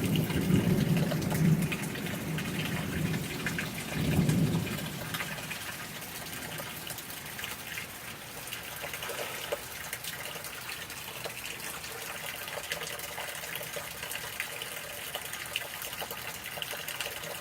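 Thunder rumbling, swelling once more about four seconds in and dying away a second later, over steady rain that carries on alone after that.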